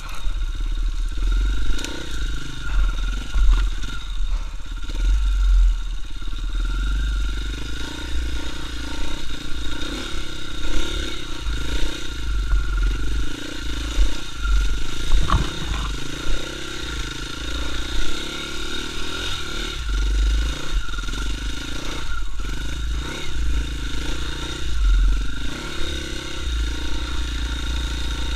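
KTM 450 EXC enduro motorcycle's single-cylinder four-stroke engine running under load, its revs rising and falling with the throttle, with the bike clattering over the rutted trail and wind buffeting the microphone. A single sharp knock about halfway through.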